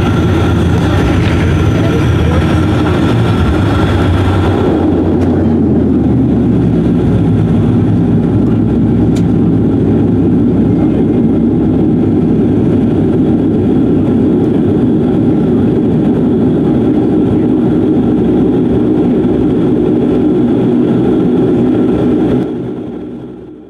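Bombardier Q400's Pratt & Whitney PW150A turboprop engines and propellers heard from inside the cabin during the landing roll-out and taxi, a loud steady drone. The higher whining tones drop away about five seconds in as the aircraft slows, leaving a lower even drone that fades out near the end.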